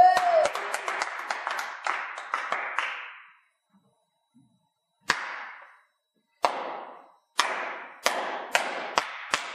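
A brief shout and a burst of many hands clapping, then, after a pause, slow, loud handclaps from one person, about two a second, as a sarcastic slow clap.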